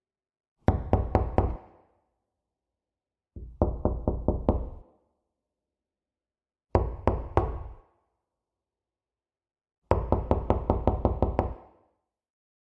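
Knocking on a door, in four bursts of quick raps with pauses between: about five raps, then five or six, then three, then a longer run of seven or eight.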